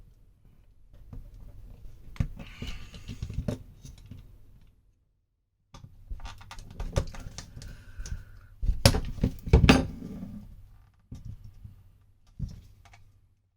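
Tools working at a small plastic controller housing, prying to open it: irregular clicks, scrapes and knocks, with a brief pause about five seconds in and the loudest knocks about nine seconds in.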